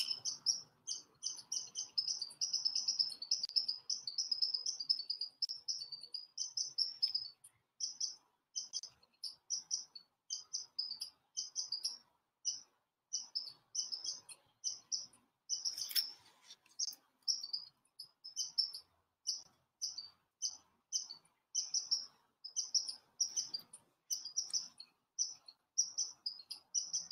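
Crickets chirping: high chirps at one even pitch, a fast continuous trill for the first seven seconds, then about two chirps a second. A brief swish sounds about halfway through.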